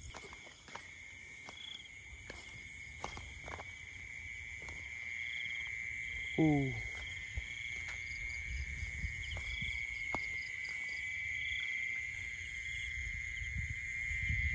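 Chorus of field insects: a steady high-pitched buzz held throughout, with pulsing trills above it. About six seconds in comes one short, low, falling call.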